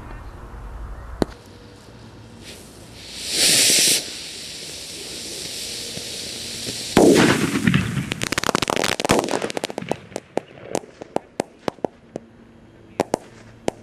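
Consumer fireworks going off: a loud hiss about three seconds in that stops abruptly, then a bang about seven seconds in. A rapid crackle of many sharp pops follows and thins out over several seconds, with a few last pops near the end.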